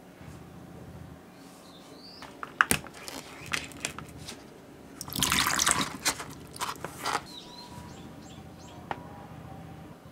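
Nata de coco cubes and their syrup poured from a pouch into a metal mesh strainer over a glass, splashing and dripping for about a second about halfway through. Light clicks and knocks of handling come before and after.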